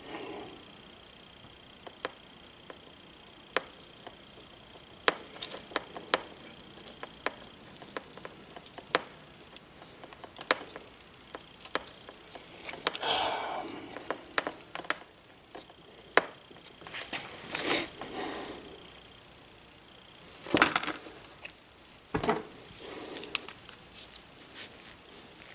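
Scattered small clicks, taps and short rustles of hand tools and a small metal connector being handled while a wire end is worked into the spread terminal. A faint steady high whine sits underneath for the first several seconds and again past the middle.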